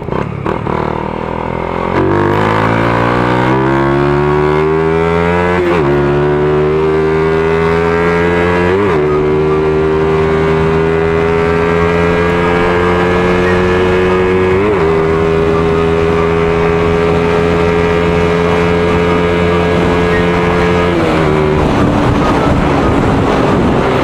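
Suzuki Raider Fi's single-cylinder four-stroke engine accelerating hard through the gears. The pitch climbs and dips with upshifts about 6, 9 and 15 seconds in, holds at high revs at highway speed, then drops as the throttle is eased near the end.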